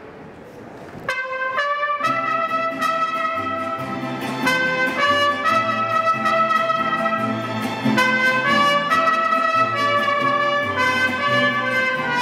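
Music led by trumpets playing a melody in harmony, entering about a second in, over a steady beat.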